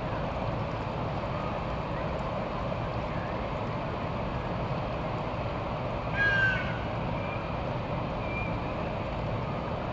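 Steady low rumbling noise, with one loud, harsh bird call about six seconds in and a faint short chirp a couple of seconds later.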